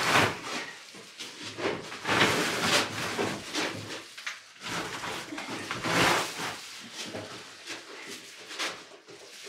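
Crinkling and rustling of large sheets of foil-faced bubble insulation being handled and shifted, in repeated bursts a second or two apart.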